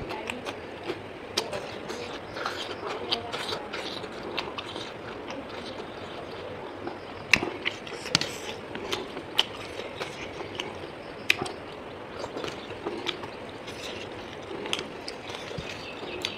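Close-up eating sounds: chewing and mouth smacking, with irregular sharp clicks throughout and a few louder ones about halfway through.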